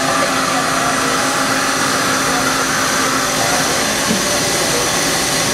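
Steady whirring machine noise with faint high steady whines from a running Matsuura H300 horizontal machining center, holding an even level throughout.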